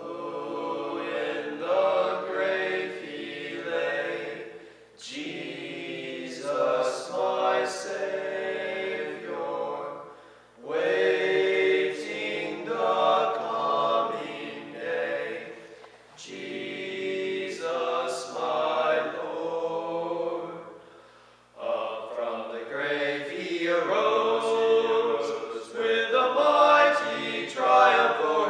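A group of voices singing together, unaccompanied, in phrases of about five seconds with brief breaks between them.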